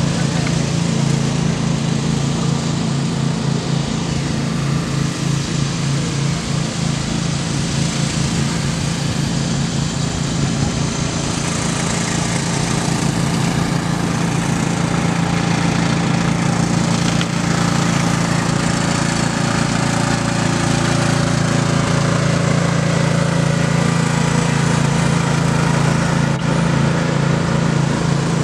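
Riding lawn mower engines running steadily as the mowers race over a dirt track, a continuous engine drone that holds loud throughout.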